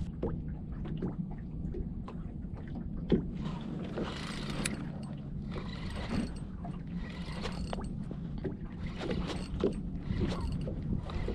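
Small waves lapping and slapping irregularly against the hull of a small fishing boat, over a low steady hum.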